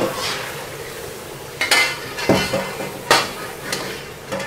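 A wok being scrubbed with a long-handled brush in a stainless-steel sink under a running tap: steady running water with several sharp scraping strokes of the brush against the wok.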